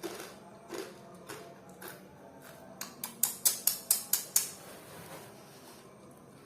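Sharp clicks or taps, scattered at first, then a quick run of about six loud ones roughly a fifth of a second apart in the middle.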